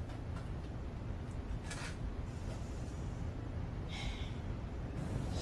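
Quiet, steady low rumble of room ambience, with two short soft breaths, one about two seconds in and one near four seconds.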